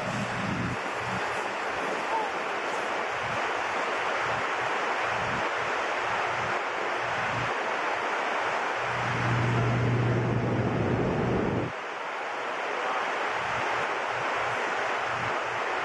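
Steady rushing roar of power-plant machinery and moving air with a low hum underneath. About nine seconds in the hum grows louder, then cuts off suddenly about three seconds later.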